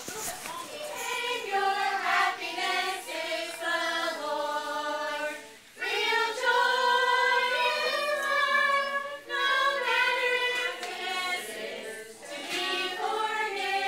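A group of children and adults singing a song together, held notes line after line, with a short break a little before halfway.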